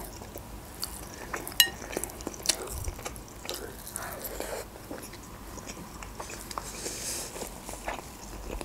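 Close-up eating sounds: a person biting and chewing a breaded chicken cutlet, with soft wet mouth clicks. A single short clink rings out about one and a half seconds in.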